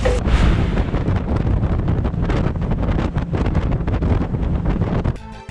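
Strong wind buffeting the microphone on a moving boat, over a heavy low rumble, in gusts. About five seconds in it cuts abruptly to background music with a steady beat.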